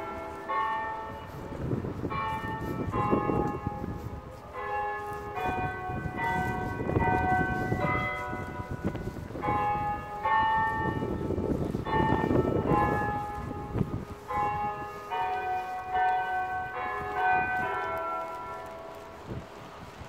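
Church tower bells being change rung: a rapid run of bell strikes at shifting pitches, one after another, which dies away near the end.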